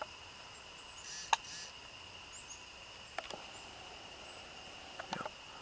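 Steady high drone of insects, with one sharp crack about a second in and a few fainter clicks later.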